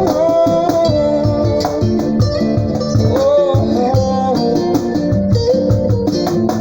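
Instrumental music with a gliding melodic lead over guitar, and a steady beat of low cajon strikes played along with it.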